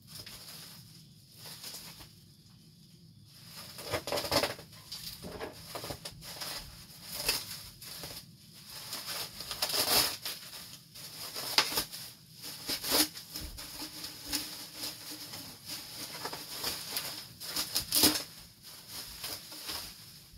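Bubble wrap being pulled off and crumpled by hand: irregular crinkling and rustling that starts about four seconds in.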